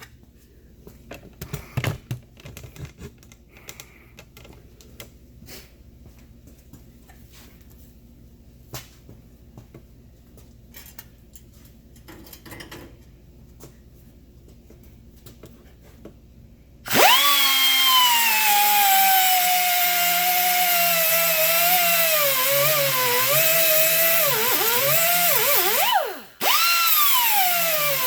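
Light clicks and knocks of handling for most of the first seventeen seconds, then a grinder starts suddenly and runs loud, its motor whine dropping and wavering in pitch as the wheel bites into the metal of a seized shock absorber fitting. It stops briefly near the end and starts again.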